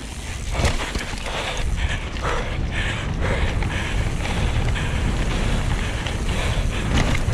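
Mountain bike riding down a wet trail: a steady low rumble of tyres and wind, with irregular knocks and clatter from the bike over bumps.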